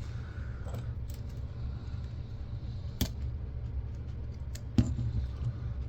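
A few sharp, small clicks of a hand tool working at a C-clip on the camcorder's parts, the clearest about three seconds in and again near five seconds, over a steady low hum.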